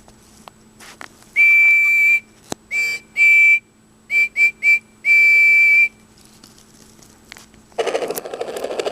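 Electronic sound module of a Thomas & Friends DVD case playing a steam-engine whistle effect through its small speaker: a long toot, two short ones, three quick toots and a final long one. Light clicks of the buttons being pressed come before it, and near the end a rhythmic engine-running effect starts.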